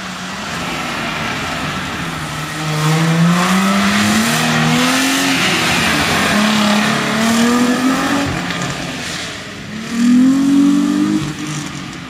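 Audi quattro coupé engine accelerating hard through the gears as the car goes past, its pitch climbing and dropping back at the gear changes about five and eight seconds in. A last hard burst of revs comes near the end, then the sound fades as the car pulls away.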